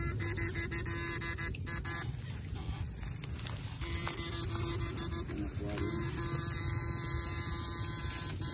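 Steady electrical hum with many overtones from a backpack electrofishing unit, powered while its two probe rods are in the ditch water. The hum fades for about two seconds in the middle, then returns.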